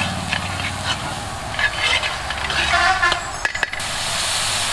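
Kitchen utensils scraping and clinking over a low steady hum. About three and a half seconds in, this gives way to a steady hiss.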